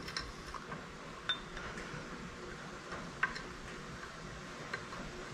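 A few light, sharp metallic clinks and ticks, spaced a second or two apart, from small metal parts and hand tools being handled on the motor switch of a Bridgeport milling machine during reassembly, over a faint steady hiss.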